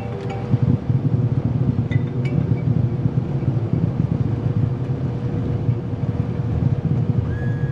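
Cockpit noise of a Cessna Citation CJ3+ taxiing on its Williams FJ44 turbofans: a steady low rumble with a faint steady whine. A steady high tone comes in near the end.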